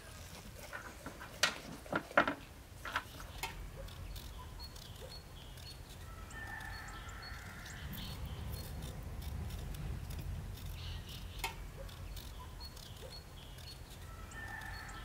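A few sharp knocks in the first few seconds, then outdoor country ambience with birds calling faintly over a low rumble.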